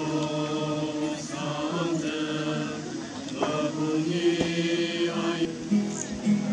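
A group of teenagers singing together from song sheets, unaccompanied, in held notes that change every second or so. Near the end a second group comes in on a different pitch.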